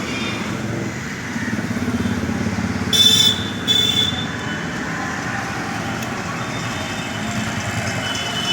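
Steady road-traffic noise, with two short high-pitched beeps about three seconds in, the loudest sounds here.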